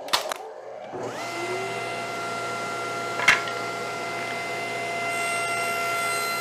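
Table saw switched on: the motor and blade come up to speed about a second in and then run steadily with a high whine. A single sharp knock about three seconds in.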